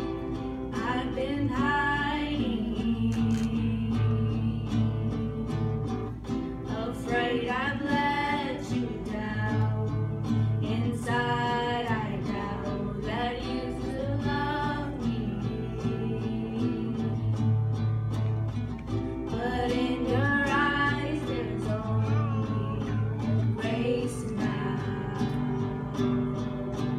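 Acoustic guitar strummed steadily under female voices singing a slow song in short phrases, with guitar-only gaps between the lines.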